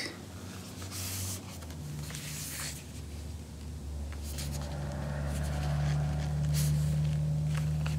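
A steady low mechanical hum that begins about two seconds in and slowly swells, with a few soft rubs and taps of hands turning a vinyl-covered armrest.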